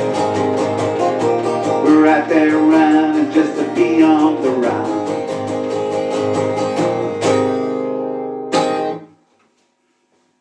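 Acoustic guitar strumming the closing bars of a song, ending on a final strummed chord about eight and a half seconds in that stops abruptly about a second later.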